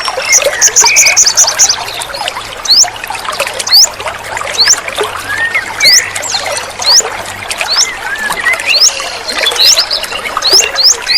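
Trickling water with wild birds calling over it: many short, rising whistled chirps, a quick trill about a second in, and lower warbling calls.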